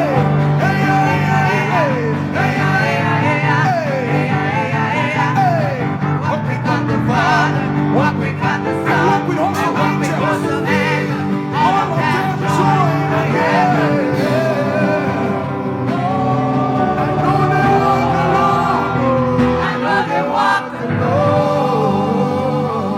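Live gospel praise music from a church band: sustained keyboard chords and bass with voices singing over them.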